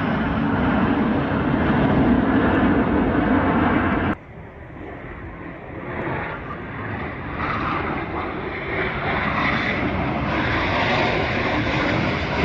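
Jet engines of a formation of military jets flying past, a loud steady rushing noise. It cuts off abruptly about four seconds in, then the jet noise builds back up gradually as the jets come around again.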